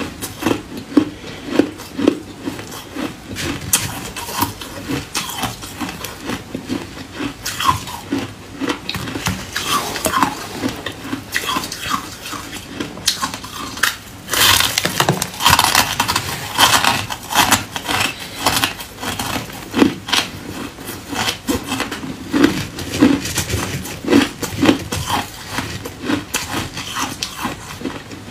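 Close-up crunching and chewing of a slab of compressed shaved ice, the ice crystals crackling and breaking between the teeth in dense, irregular bites. About halfway through there is a longer, louder run of crunching.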